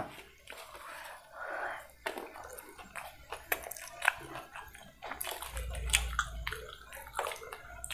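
A man eating chicken noodles with his fingers from a steel plate: chewing and wet mouth smacks, with scattered short clicks.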